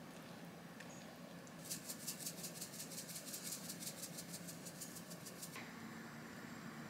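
A shaker of dried parsley being shaken over a dish: a fast, even rattling of about seven light taps a second, starting a little under two seconds in and lasting about four seconds, over a faint steady hum.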